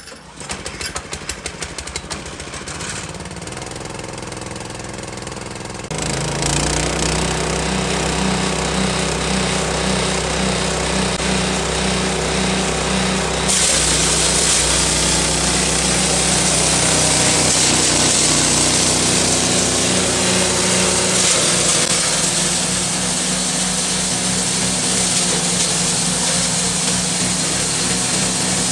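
A 7.5 hp single-cylinder petrol engine drives a belt-driven chopper/hammer mill. It idles with even, rapid firing, then speeds up to working speed about six seconds in. From about halfway through, corn cobs are fed in and ground, adding a loud, steady hissing rattle of cob being pulverised over the engine.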